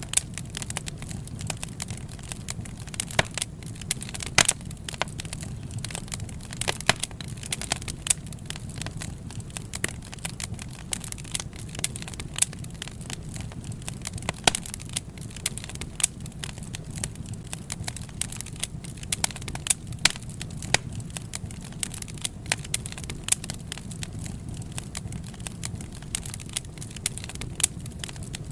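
Wood fire burning: a steady low rumble of flame with sharp, irregular pops and crackles of burning logs, several a second.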